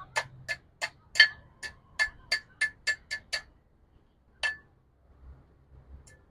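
Blacksmith's hammer striking hot steel on an anvil while forging a ladle handle, each blow ringing. A quick run of blows, about four a second, stops about three and a half seconds in; one lone blow follows a second later, and the hammering starts again near the end.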